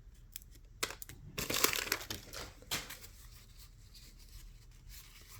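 Waxed-paper wrapper of a 1987 Topps wax pack crinkling and crumpling in the hands, in several short bursts over the first three seconds, then quieter.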